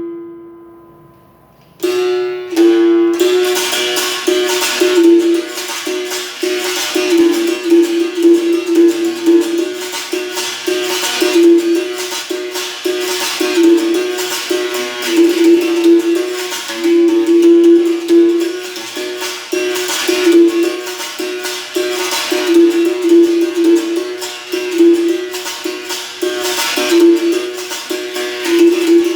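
Capoeira berimbau played with stick and caxixi shaker: a twanging note struck over and over in a quick rhythm with a rattling shake on top. The first note rings and fades out, and the playing starts again about two seconds in.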